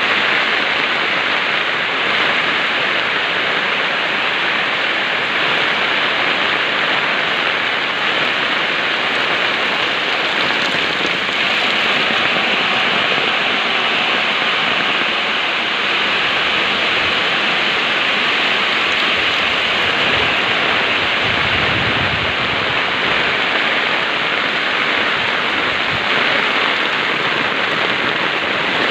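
Heavy rain pouring down steadily, a dense even hiss of rain hitting surfaces.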